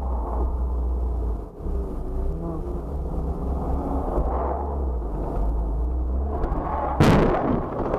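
Low road and engine rumble inside a moving car, then a sudden loud crash about seven seconds in: the dashcam car colliding, which leaves its windscreen cracked.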